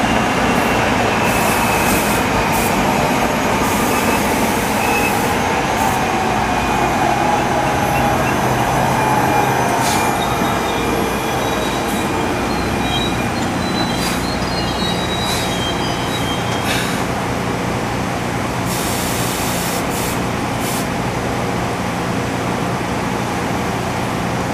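GE Arrow III electric multiple-unit cars braking to a stop: a steady rolling rumble with a whine that falls in pitch as the train slows, thin brake squeals in the middle and short hisses of air. Once the cars are nearly stopped, a steady low hum remains.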